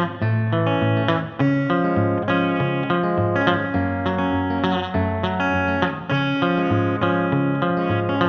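Background music led by guitar, with plucked and strummed chords over a bass line and a steady beat.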